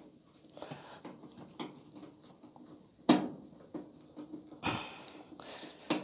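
Phillips-head screwdriver turning screws into a clothes dryer's top panel: irregular small clicks and scrapes of the driver and screw, with one sharper click about three seconds in, over a faint steady hum.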